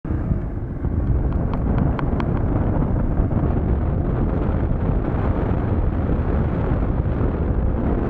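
Wind buffeting the microphone over the steady running noise of a Yamaha Serow single-cylinder trail bike ridden along a paved road.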